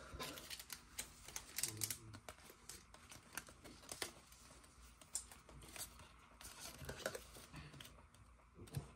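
A stack of Topps baseball cards being thumbed through by hand and set down into piles, giving faint, scattered papery clicks and slides.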